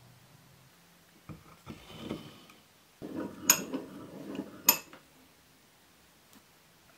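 Cast-iron bench vise worked by hand: a knock and some scraping, then the screw turning with a rattle and the sliding steel handle bar giving two sharp metal clinks about a second apart.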